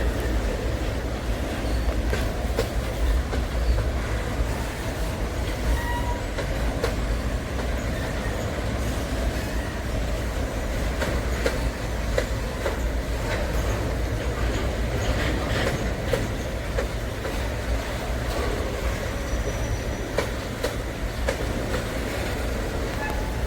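Long freight train's cars rolling steadily over a bridge: a continuous low rumble with clattering wheel clicks and a few brief faint wheel squeaks.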